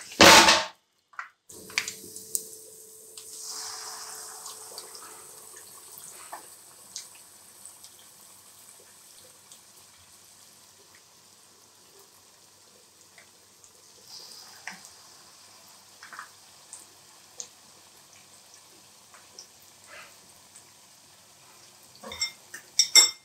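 Batter-coated roti cones deep-frying in hot oil in a kadai: a sizzle that swells a couple of seconds in, then settles to a steady low sizzle with scattered pops and crackles. A brief loud noise right at the start and a quick run of clicks near the end.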